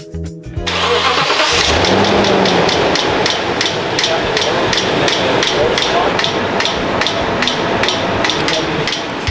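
Toyota Tundra engine starting and running with a sharp, regular ticking, about three or four ticks a second, from the belt-driven accessories. The tick is most likely from a torn serpentine belt missing a rib and jumping from rib to rib on the pulleys, with a noisy tensioner pulley also found.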